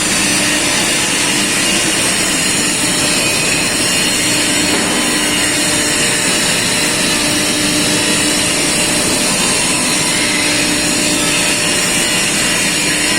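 Tornado Tiger 28:40 air-assisted airless (Airmix) sprayer spraying epoxy: a steady, loud hiss of spray and air, with a low hum that comes and goes.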